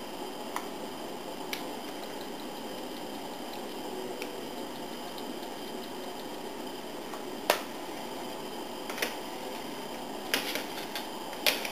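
Steady hiss of a Coleman camp stove's gas burner under an aluminium pot, with a few light clicks and taps as a spice container is handled and shaken over the pot; the sharpest click comes about two-thirds of the way through, and a few more near the end.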